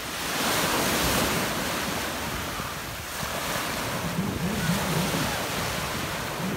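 Small waves washing onto the beach in the shallows, with wind buffeting the microphone; the surf swells about half a second in and again around four seconds.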